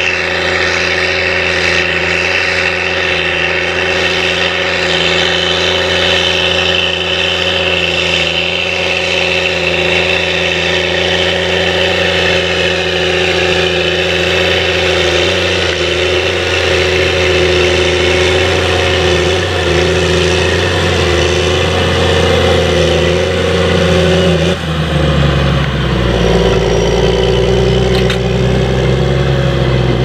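Caterpillar Challenger MT765B tracked tractor's diesel engine running steadily under load while pulling a seven-furrow reversible plough. About 25 seconds in the sound dips briefly, and the engine note is lower and deeper after it.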